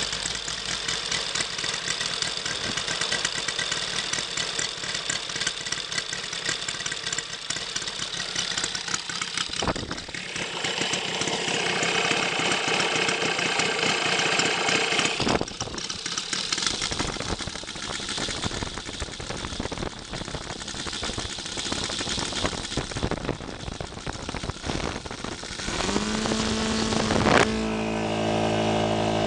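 Saito FG-90R3 five-cylinder spark-ignition radial engine, fitted with Saito's optional ring muffler, running on a test stand with its propeller turning at the end of its break-in. It speeds up and drops back, louder and higher-pitched about 11 to 15 seconds in. From about 26 seconds in it settles into a steadier, evenly pitched drone.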